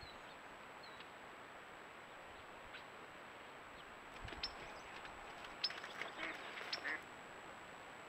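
Ducks quacking, a run of short harsh calls in quick succession from about halfway through, heard faintly over a steady background hiss.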